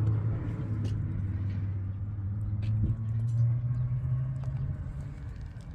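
A motor vehicle's engine running with a steady low hum that grows fainter toward the end, with a few faint taps over it.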